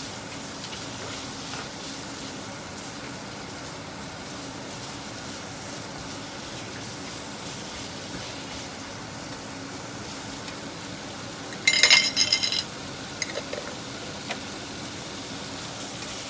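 Pork frying in oil in a pan, a steady sizzle. About twelve seconds in comes a loud clatter of cookware, followed by a few lighter clicks.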